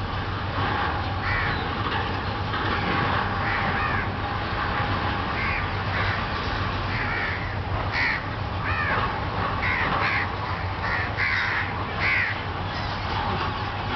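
Crows cawing over and over in short harsh calls, coming thickest for a few seconds past the middle, over a steady low background hum.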